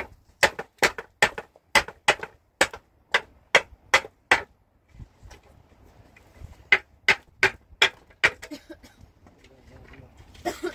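Hammering: a run of about ten quick, even strikes, a pause of about two seconds, then five more strikes.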